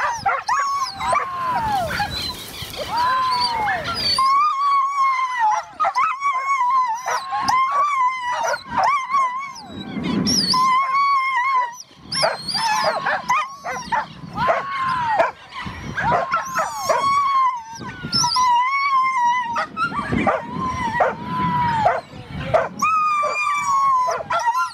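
Greyhounds yelping and howling with excitement at the chase: a near-continuous string of short, high, arching cries, one after another.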